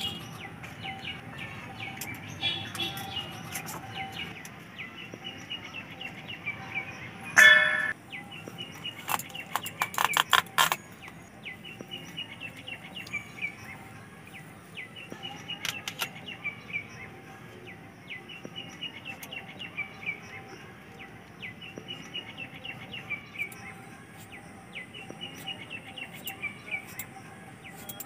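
Small birds chirping in repeated short trills. About seven seconds in there is one loud, short ringing sound, and around ten seconds in a quick run of sharp clicks.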